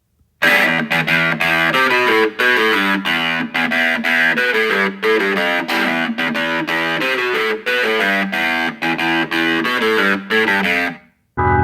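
Music: a distorted electric guitar riff of quick, short picked notes. It starts about half a second in and cuts off just before the end, where a held organ chord comes in.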